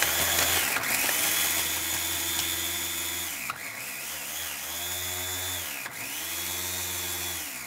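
Small electric food chopper motor whirring as it chops hot chili peppers and garlic, run in about three pulses with the pitch sagging briefly between them, then stopping near the end.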